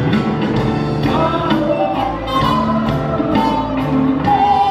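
Live Andean folk-rock band playing, with a sung melody over guitar, charango and a steady drum beat.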